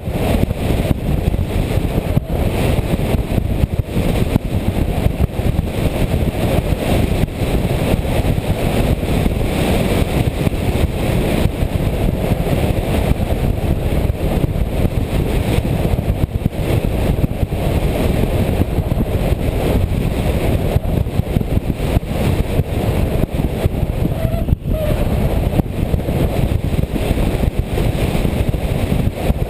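Steady rush of wind and propeller noise from a radio-controlled FPV airplane in flight, picked up by its onboard camera's microphone, with a brief dip about 24 seconds in.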